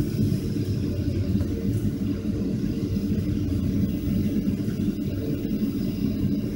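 Boeing 757-200's Rolls-Royce RB211 turbofans running at low power, heard inside the cabin as a steady low rumble while the airliner taxis on the ground.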